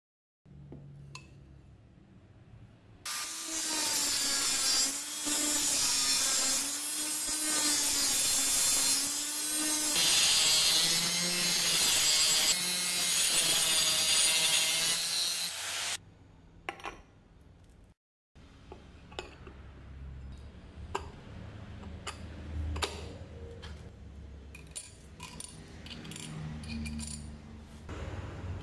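Angle grinder grinding a steel disc for about thirteen seconds, starting about three seconds in. Its motor whine wavers in pitch as the disc is pressed into the metal. Before and after it there are quiet handling noises and small metal clicks from parts on the bench.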